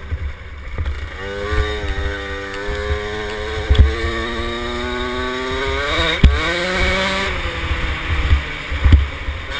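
KTM 50SX's small two-stroke engine revving as the mini bike is ridden on a dirt track, its pitch climbing steadily, then rising sharply about six seconds in and dropping back. Low rumble and a few sharp thumps from the bike hitting bumps.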